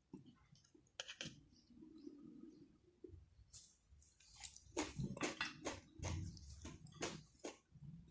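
Close-miked chewing and mouth smacks of a person eating: a few faint clicks at first, then a quick run of short wet smacks through the second half.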